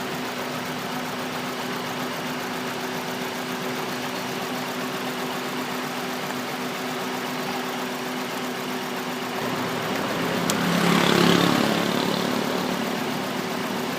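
2003 Honda Accord's K20 four-cylinder engine idling steadily with a misfire on cylinder 3 that a new coil and spark plug have not cured. About ten seconds in there is a click and the sound briefly swells louder.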